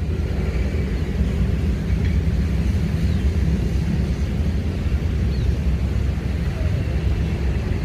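Wind buffeting the microphone outdoors, a steady low rumble throughout, with a few faint short high chirps over it.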